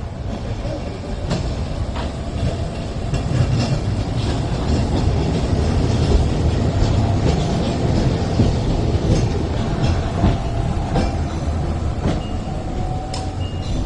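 Hong Kong Peak Tram's red fifth-generation funicular car rolling past on its rails: a low rumble of steel wheels on track with scattered clicks, swelling as the car goes by close at hand.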